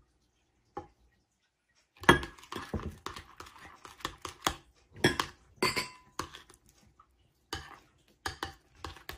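Metal spoon stirring curd and boondi in a bowl, clinking and scraping against the bowl's sides in quick irregular strokes. The stirring starts about two seconds in, after a single click.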